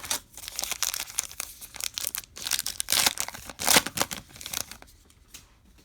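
A baseball card pack wrapper being torn open and crinkled: a dense run of crackling and tearing that dies down about a second before the end.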